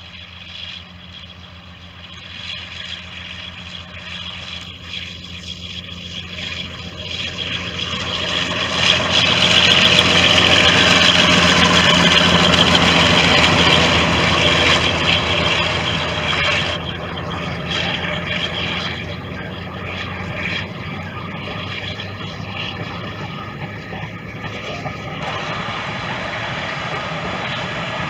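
Class 52 'Western' diesel-hydraulic locomotive D1015 running under power as it approaches, its engine sound growing steadily louder and loudest as it passes about nine to fifteen seconds in. Its coaches then roll past, with the engine sound dropping back to a lower, steady level.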